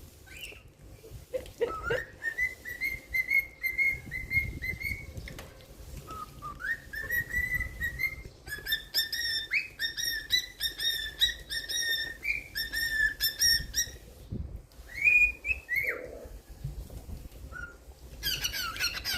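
Pet cockatiel whistling a string of notes at a fairly even pitch, some sliding up or down, with a quick run of short notes in the middle. It breaks into harsher chirps near the end.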